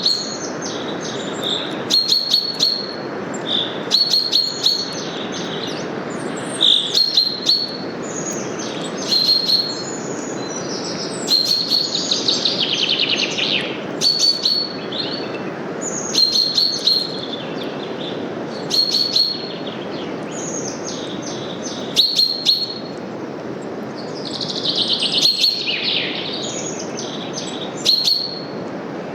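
Birds singing short, repeated chirping phrases about every two seconds, with a longer trill about twelve seconds in and again near twenty-five seconds, over a steady rustle of wind through forest leaves.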